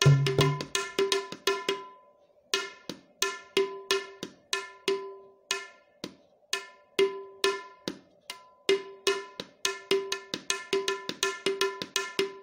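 Tabla played solo in a medium-tempo keherwa rhythm. Ringing, steady-pitched strokes on the right-hand dayan drum, with deep left-hand bayan strokes only in the first second. After that only the dayan strokes go on, with short pauses about two and six seconds in.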